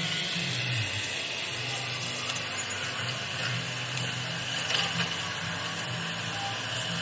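Radio-controlled toy excavator running as it drives and slews on loose soil: a steady low engine-like hum that wavers in pitch near the start, with a small click about five seconds in.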